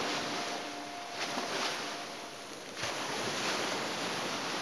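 Ocean waves crashing and breaking into spray on rocks: a steady rushing surf with surges about a second in and again near three seconds.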